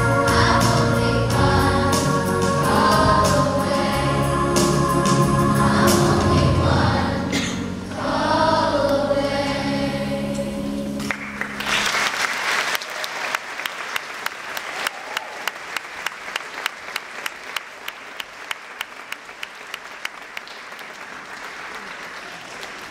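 Children's choir singing the last phrases of a song, the final note ending about eleven seconds in. Audience applause follows and gradually dies down.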